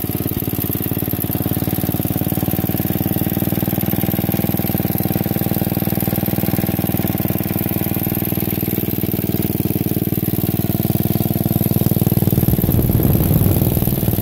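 A 1957 Beaver garden tractor's air-cooled single-cylinder Wisconsin engine idling steadily. It grows louder and rougher for a couple of seconds near the end.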